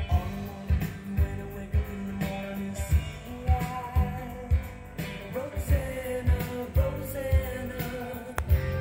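A song with singing and guitar over a steady bass beat of about two beats a second, played from a vinyl LP on a Denon DP-1200 direct-drive turntable.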